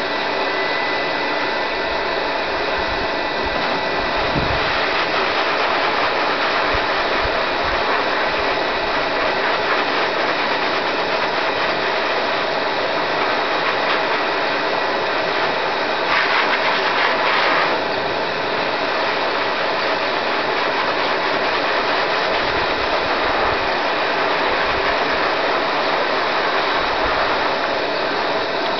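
K9-II high-velocity dog dryer running steadily with both fan blowers on, a loud rushing blow with a steady motor whine, blowing excess water out of a wet dog's long coat. It grows briefly louder and hissier a little past halfway through.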